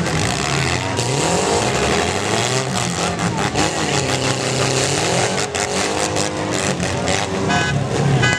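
Several demolition-derby cars' engines revving at once, their pitches rising and falling, with a run of metal-on-metal crashes from about five and a half to seven seconds in.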